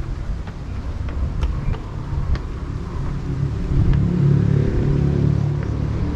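Motor vehicle engine running steadily, growing louder about four seconds in, as if a vehicle draws near or speeds up.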